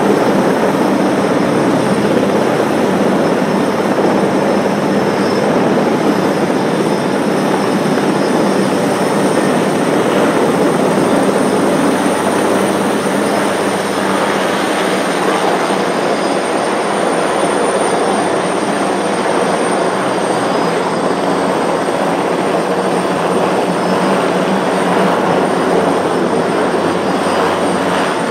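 Helicopter hovering close overhead on a rooftop air-conditioner lift, its rotor and engine noise loud and steady, with a thin high whine held over it.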